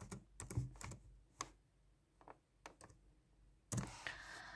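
Faint, irregular small clicks and light taps, several of them spaced unevenly, with no steady sound between.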